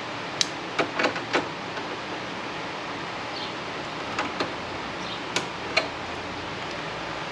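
Scattered light clicks and knocks of things being handled, a quick cluster in the first second and a half and a few more between four and six seconds in, over a steady hiss.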